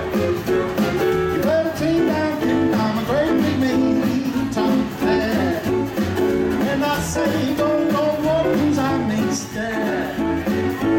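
Live rockabilly band playing: electric and acoustic guitars over an upright double bass and drum kit, a steady driving beat.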